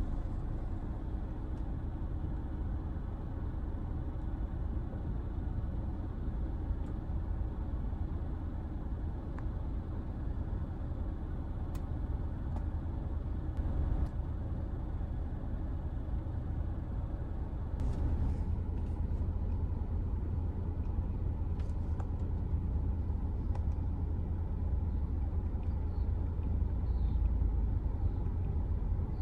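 Steady low rumble inside the cabin of a 2021 Hyundai Elantra with its 2.0-litre four-cylinder engine running, growing somewhat louder about eighteen seconds in. A few faint clicks sit on top of the rumble.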